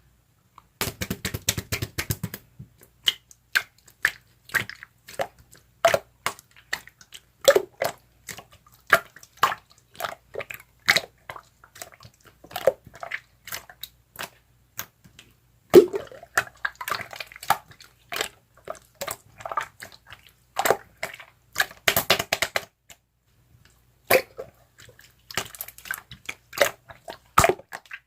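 Slime being squished, pressed and stretched by hand, giving rapid sticky clicks and small bubble pops in irregular bursts, with a brief pause about three-quarters of the way through.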